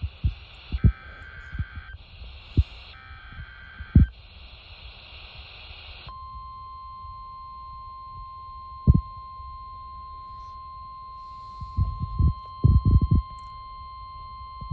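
NOAA Weather Radio test signal off a receiver: the last SAME data header bursts, raspy two-tone warbles alternating with hiss, then about six seconds in the steady 1050 Hz weather radio warning alert tone, which holds for about nine seconds. Low thumps sound here and there over it, a cluster of them near the end.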